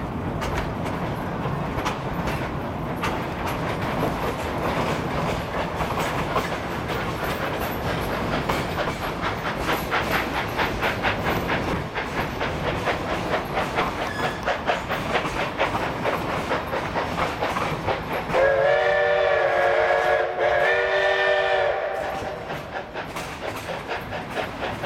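Steam locomotive working hard pulling a narrow-gauge passenger train: rapid exhaust beats mixed with wheels clicking over the rail joints, heard from a car in the train. About three-quarters of the way through the locomotive's whistle sounds two long blasts, the second a little shorter.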